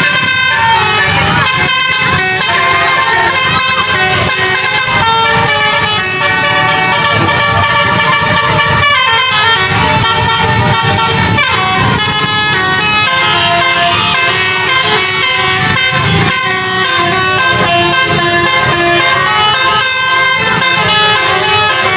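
Basuri telolet multi-tone air horns on tour buses playing a tune, note after note without a break. A couple of notes slide downward about halfway through.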